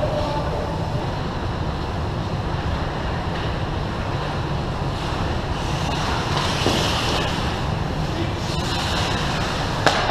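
Ice-rink sound of pickup hockey: a steady low rumble, with hockey skates scraping the ice as players come in on the net in the second half, and one sharp knock near the end.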